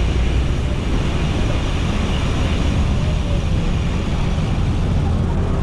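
Steady road noise while cycling along a busy highway: traffic and wind on the microphone, with no single event standing out.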